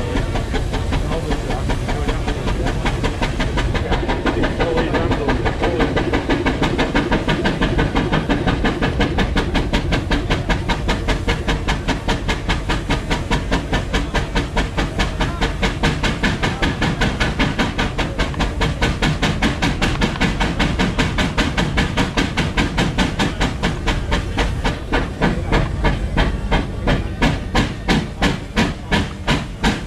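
McLaren steam road locomotive working hard on a belt-driven dynamometer, its exhaust beating fast and even up the chimney with a steady steam hiss. Near the end the beats slow and stand out more sharply.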